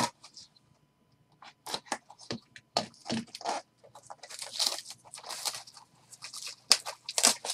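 Cellophane shrink wrap being torn and pulled off a cardboard hockey-card hobby box, in irregular crinkling and tearing bursts that start about a second and a half in.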